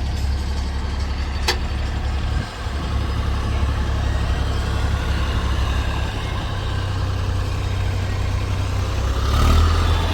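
Heavy machine's diesel engine running steadily with a low rumble. A single sharp click comes about a second and a half in, and the engine gets briefly louder near the end.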